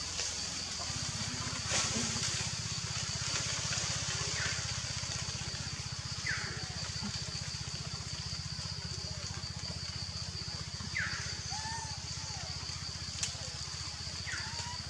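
Steady forest ambience: a constant high-pitched hiss over a low rumble, with four short falling chirps scattered through it.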